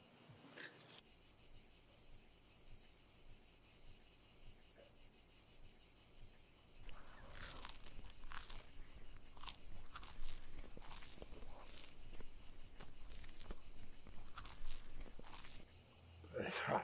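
Crickets chirping steadily in a fast, even pulse. A scatter of short, irregular noises comes over them in the second half.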